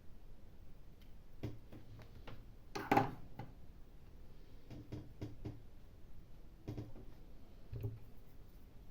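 Scattered light clicks and taps of small tools and parts being handled on a workbench, with one louder knock about three seconds in.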